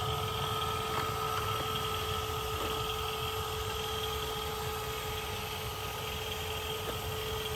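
Remote-control toy excavator's electric gear motors whining at a steady high pitch as it lifts a toy car out of a pit, over a low rumbling hum.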